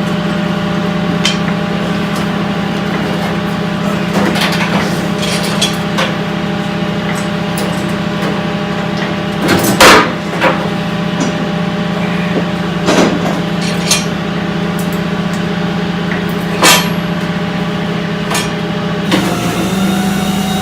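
Tow truck running steadily while the car is pulled up onto it, with a few sharp metallic clunks, the loudest about ten seconds in.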